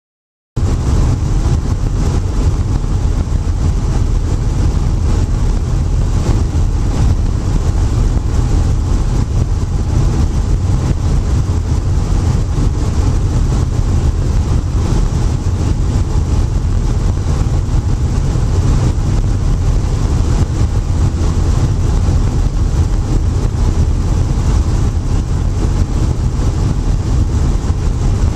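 Cabin noise of a Robinson light helicopter in flight: a loud, steady drone of the piston engine and rotor, heaviest in the low end. It cuts in suddenly about half a second in.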